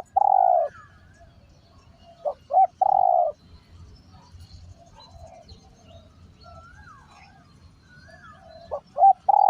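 Spotted dove cooing: each phrase is two quick short notes followed by a longer drawn-out coo, heard at the start, about two and a half seconds in, and again near the end. Faint chirps from other birds fill the gaps.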